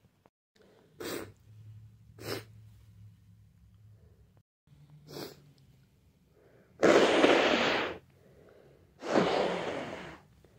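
A person sneezing: three short, quieter breaths or catches, then two loud sneezes about two seconds apart near the end, the second trailing off.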